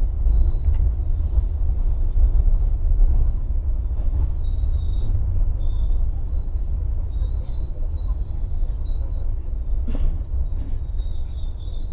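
Serayu passenger train running on the rails: a steady low rumble, with high, thin wheel squeals that come and go, and a single knock about ten seconds in.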